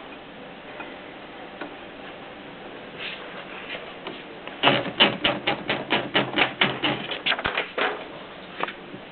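Triumph Norm typewriter being typed on. A few faint clicks come first, then a quick run of about twenty keystrikes at roughly six a second, followed by a single strike near the end.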